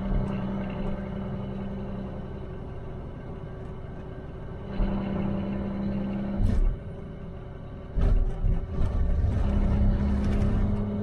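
Truck driving on a snowy highway, heard from inside the cab: a steady engine drone with road noise. About 8 seconds in, a louder low rumble sets in and lasts to the end, with a short thump a little before it.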